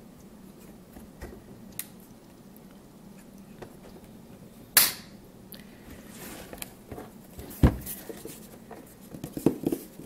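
A closed wooden art-supply box being handled on a wooden table: small finger taps and scratches on the wood, a sharp click about halfway through, a dull knock a few seconds later, then a cluster of knocks near the end as the box is tipped up on its edge.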